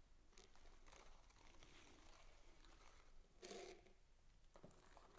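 Faint rustling and crinkling of a sack and a folded paper feather being pulled out of it, with one slightly louder rustle about three and a half seconds in.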